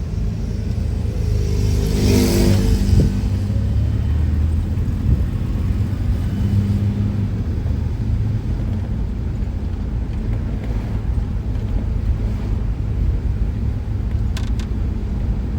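Car driving, a steady low road and engine rumble as heard from inside the vehicle, with a louder rush about two seconds in.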